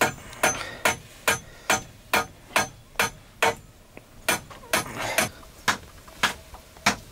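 Metal spatula clanking against a wok in a steady rhythm, about two strikes a second, as food is stirred and fried.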